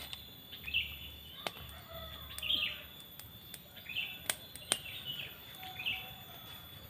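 A bird chirping: short high calls repeating every second or two, with a few sharp clicks among them.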